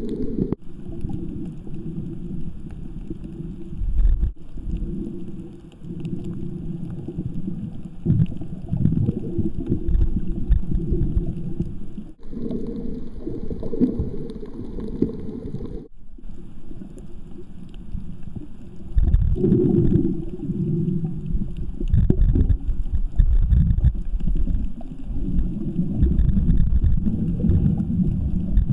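Muffled, low rumbling water noise picked up by a camera submerged in a waterproof housing. The sound shifts abruptly a few times and grows louder in the second half.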